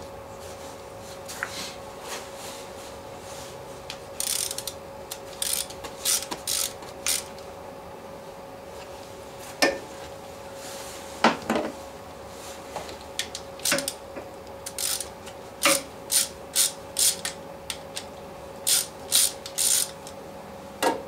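Clusters of short, sharp mechanical clicks and scraping strokes from hand tools working on the ATV's wiring, over a steady hum.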